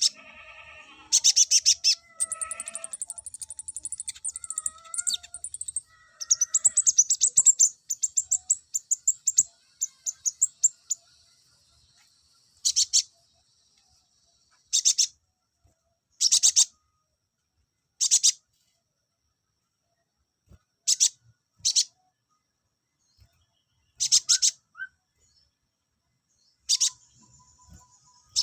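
Konin songbird calling: sharp, high chirps and fast trills in clusters, with short silent gaps between. A few lower whistled notes come in over the first six seconds.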